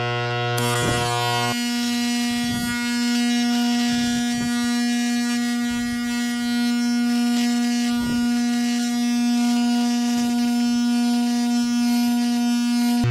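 Background music: a sustained synth drone that jumps to a higher note about a second and a half in and then holds, with a few soft hits.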